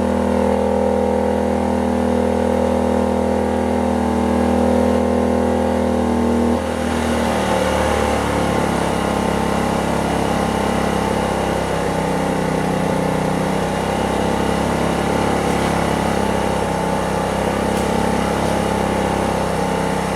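Predator 2500 inverter generator running steadily under a heavy load. About six and a half seconds in, its pitch drops and it settles into a lower, steady running speed as the load comes off.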